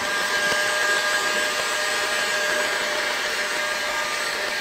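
Milwaukee heat gun coming on and running steadily: a fan whir with a constant whine, blowing hot air to shrink and melt plastic wrap on a plastic skeleton.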